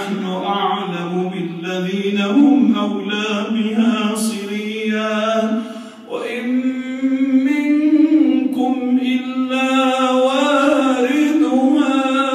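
A man's voice reciting the Quran in a melodic, chanted style, with long drawn-out notes. One phrase ends about six seconds in, and after a short breath a new phrase begins.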